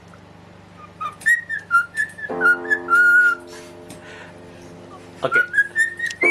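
A cockatiel whistling a tune in short, gliding notes, in two phrases with a pause between them. A note or chord on the keyboard rings out and fades under the first phrase.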